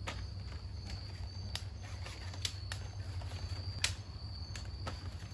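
A dozen or so sharp, irregular clicks as the sections of a telescoping fiberglass hot stick are slid out and lock, with the loudest click about four seconds in. Crickets chirp steadily behind it, over a low wind rumble.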